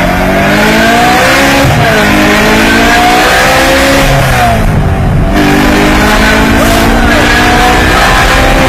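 Car engine heard from inside the cabin, accelerating hard through the gears from about 20 to over 110 km/h. Its pitch climbs, drops at gear changes about two and five seconds in, then climbs again.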